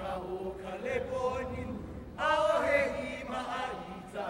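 Chanting of a Hawaiian hula kahiko chant: voices in held, wavering tones, growing louder about two seconds in.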